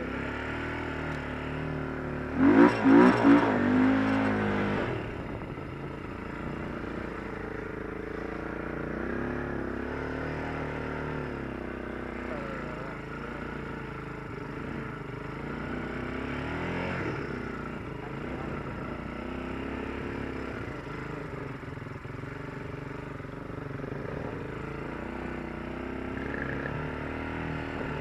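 Honda TRX quad's engine revving up and down with the throttle as it is ridden. About two and a half seconds in, a short, much louder burst of hard revving.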